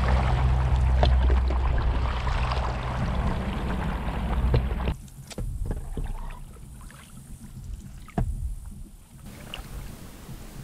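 Stand-up paddle board paddle stroking through calm creek water: splashing and dripping. Wind rumbles on the microphone for about the first five seconds, then the sound drops suddenly to quieter strokes with a few sharp ticks.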